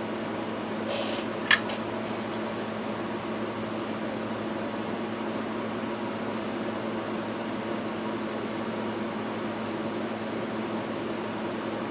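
Steady fan hum with a low electrical drone. A short hiss just under a second in, then one sharp click about a second and a half in.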